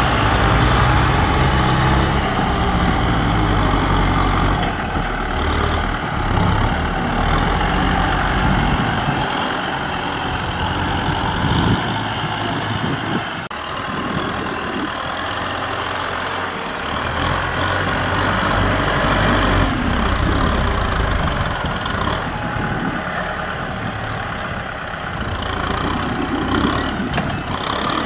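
Kubota M6040SU tractor's diesel engine running under load as its front blade pushes mud, the engine's low rumble easing off twice in the middle and then building again.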